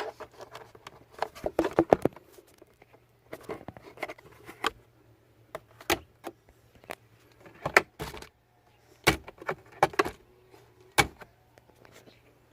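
A dozen or so irregular sharp clicks and knocks of hard plastic from a car's glovebox and cabin air filter housing being handled.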